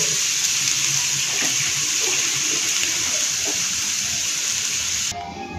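Banana stem and potato strips sizzling in hot oil in a frying pan: a steady hiss that cuts off suddenly about five seconds in.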